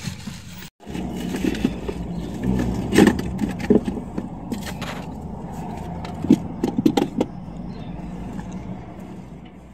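Petrol station fuel dispenser: a steady low hum with several sharp clicks and knocks as the fuel nozzle is handled and hung back on the pump.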